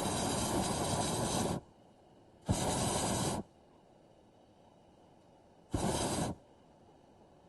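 Air hissing out of a deflating balloon in three separate rushes, each shorter than the one before, with no squeal.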